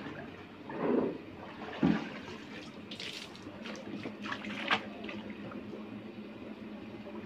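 Liquid sloshing and splashing as a plastic bucket is scooped through a drum of liquid and dipped and poured into a vat of foamy soy milk for tofu, with the bucket knocking sharply against the container about two seconds in.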